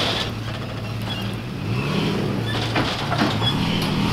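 Toyota Tacoma pickup's engine revving as the truck spins its wheels, stuck in soft plowed dirt. The revs rise and fall midway and climb again near the end, with a few sharp cracks.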